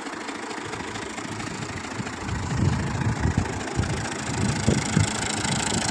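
Al-Ghazi tractor's diesel engine idling with the tractor standing still, getting louder from about two seconds in.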